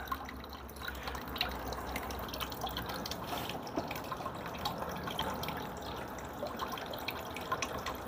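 Water trickling down a carved wooden waterfall sculpture and dripping into a plastic bucket at its base, a steady trickle with many small, irregular drips.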